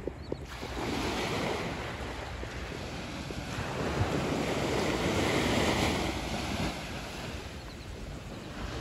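Small waves breaking and washing up on a sandy beach, the surf swelling twice, with wind rumbling on the microphone.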